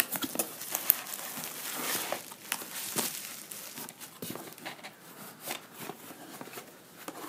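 Bubble wrap crinkling and cardboard rustling as a bubble-wrapped parcel is pulled from a shipping box and handled: irregular crackles and taps, busiest in the first three seconds.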